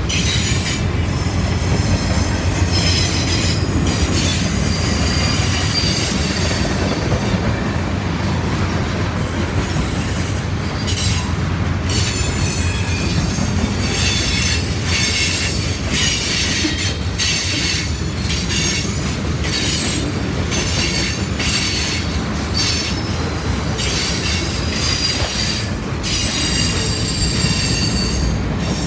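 Freight train cars rolling past close by: a steady low rumble of steel wheels on rail, with high-pitched wheel squeal that comes and goes and clicking as the wheels run over rail joints.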